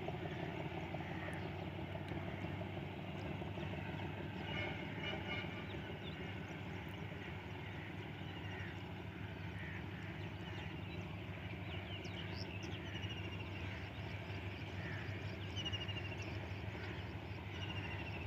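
Diesel locomotive 8041 working hard under heavy exhaust as it pulls a train away from a station, heard at a distance as a steady low engine drone. Birds chirp repeatedly over it.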